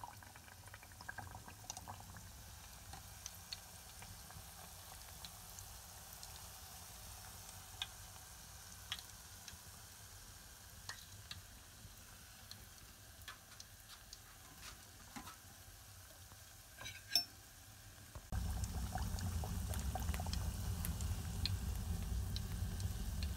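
Cookie batter on a rosette iron deep-frying in hot lard in an enamel pot: a soft, steady sizzle with scattered light clicks of the metal iron against the pot. Near the end it turns suddenly louder, with a low rumble underneath.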